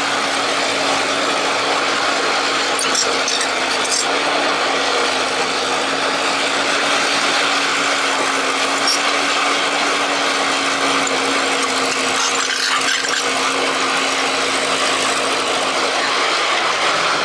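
Excavator running steadily under work: a constant-pitch mechanical hum over a dense noisy wash, with a few faint clicks.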